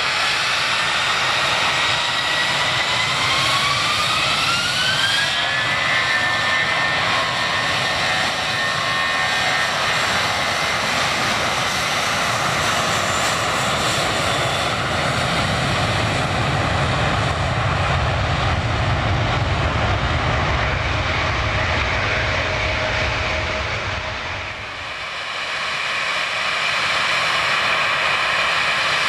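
Twin-engine jet airliner spooling up for takeoff: the engines' whine rises in pitch over the first five seconds, then gives way to loud, steady jet noise at takeoff power, with a deep rumble building through the middle. The noise dips briefly near the end, then picks up again.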